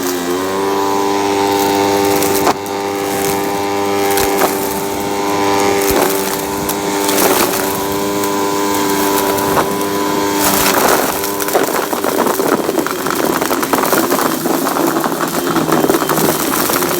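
Hoover vacuum cleaner running with a steady motor whine that climbs slightly as it settles, with a few sharp knocks. About two thirds of the way through, the whine gives way to a rougher, more rattling noise.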